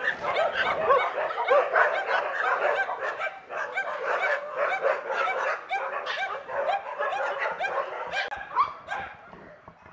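A pack of street dogs barking, many at once and over one another, thinning out near the end.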